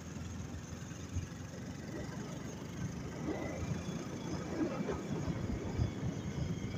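Motorcycle engine running steadily while riding up a paved hill road, a continuous low drone under road noise.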